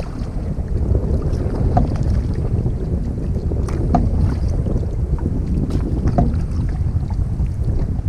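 Wind buffeting the microphone of a canoe's bow-mounted camera on choppy water, with a short splash about every two seconds from paddle strokes.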